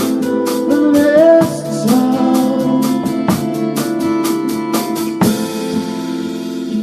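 Instrumental passage of a band song: a drum kit keeps a steady beat under held guitar chords. About five seconds in the drum strikes stop, leaving a ringing cymbal wash over the sustained chords.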